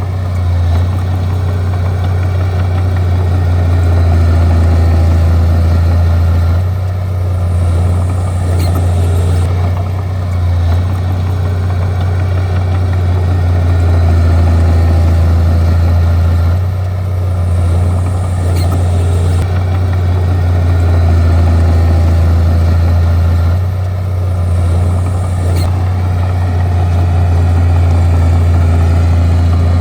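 Bulldozer's diesel engine running, a loud deep steady drone with mechanical clatter over it, easing off briefly and picking up again several times.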